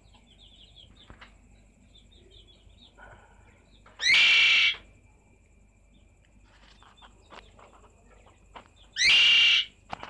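Budgerigar calling loudly twice, each harsh call lasting under a second, over faint rapid budgie twittering.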